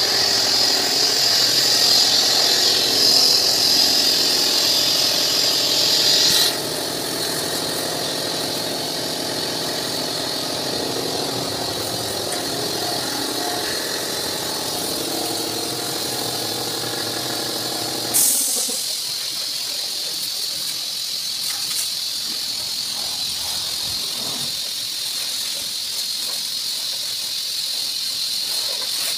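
High-pressure washer jet spraying water onto a truck, a steady loud hiss. For roughly the first two-thirds a motor runs underneath the spray, then it drops away suddenly, leaving the hiss of the jet alone.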